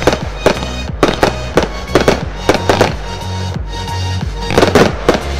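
Consumer fireworks compound firing aerial shots: a rapid, irregular series of sharp bangs as the shells break, about a dozen, with a tight cluster near the end.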